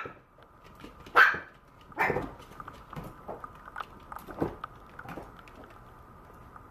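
Maltese puppy giving short high-pitched barks, the loudest three in the first two seconds, followed by a few fainter yips.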